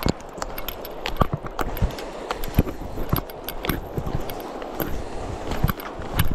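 Footsteps on a dirt trail through dense brush, about two a second, with twigs and leaves crackling and rustling against the walker.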